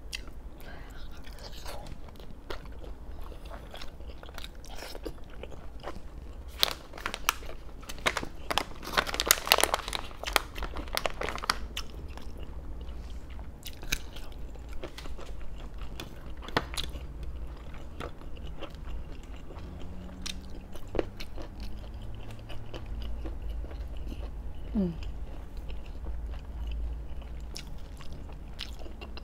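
Close-up chewing and biting of braised pork belly, with small wet clicks of the mouth throughout and a run of louder crunchy bites about 7 to 11 seconds in, over a low steady hum.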